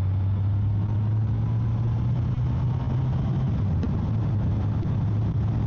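Motorcycle engine running at a steady cruising speed, a low even drone, with steady wind noise over it.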